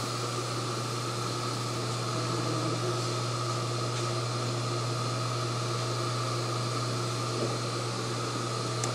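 RDO LC induction melting system running steadily, holding molten copper in its crucible: a constant hum with an even fan-like hiss.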